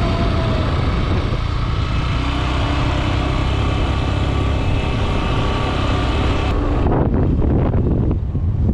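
Motor scooter or motorbike running while being ridden, a steady engine and road rumble with wind buffeting the microphone. The sound changes abruptly about six and a half seconds in, losing its hiss.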